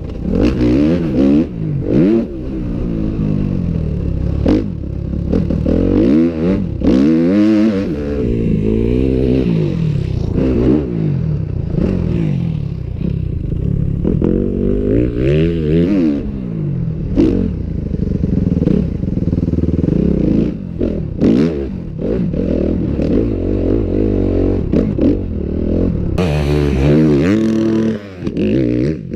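Dirt bike engine revving up and down over and over as it is ridden, with rattles and knocks from the bike. Near the end comes a rushing noise about two seconds long.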